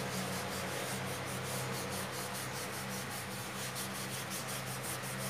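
A hand rubbing over paper coloured with orange pastel, blending it in quick, even back-and-forth strokes with a dry, scratchy sound.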